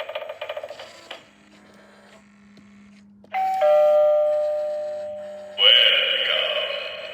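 Gemmy Halloween eye doorbell playing its built-in sounds through its small speaker. A pulsing electronic tone fades out, and after a short pause a doorbell chime of several tones sounds at about three seconds in and slowly dies away. Near six seconds a louder effect with sliding, wavering pitch begins.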